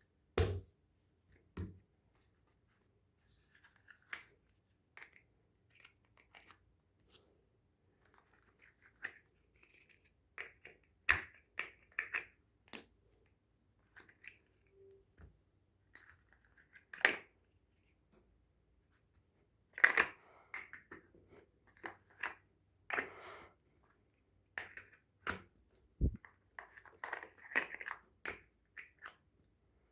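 Plastic toy pieces being handled, irregular clicks, knocks and clatter with pauses between them, a few sharper knocks standing out.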